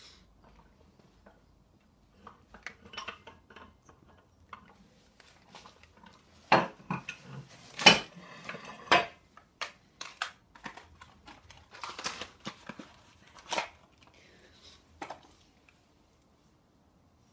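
Metal crane scale being handled and set down in foam packaging: a run of knocks and clinks from its steel hook, shackle and hard case, loudest about six to nine seconds in.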